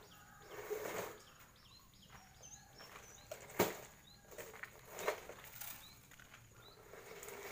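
Small birds chirping in short, high, repeated notes, with bursts of rustling and a single sharp click a little past the middle.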